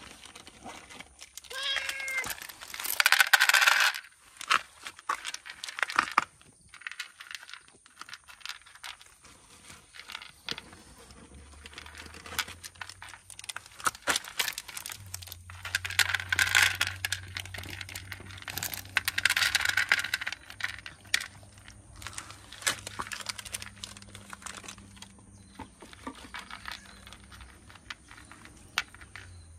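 Cats eating with many small clicks, a short meow about two seconds in, and several loud crinkling, rustling bursts, the loudest just after the meow. A low steady hum comes in about halfway.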